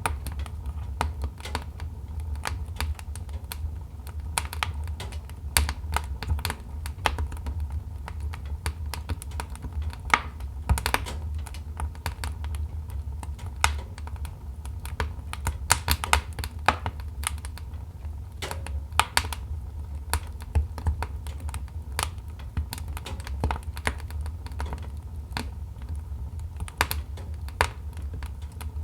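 Wood fire burning in a fireplace, crackling with many irregular sharp snaps and pops over a steady low rumble of the flames.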